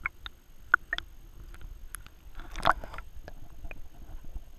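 Small waves lapping and splashing against a waterproof action camera held at the waterline, with sharp drips and ticks, then a louder splash a little past halfway as the camera dips under the surface.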